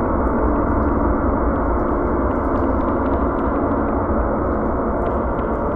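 Steady, dense, deep ambient drone of a horror soundscape that holds at one level without change, with faint crackles above it.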